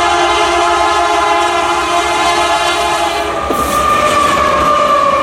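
Freight locomotive's multi-chime air horn blowing a long, steady chord as the train approaches. About three and a half seconds in, the lead locomotive passes close by: the horn's pitch drops slightly and the rumble of engine and wheels rises under it.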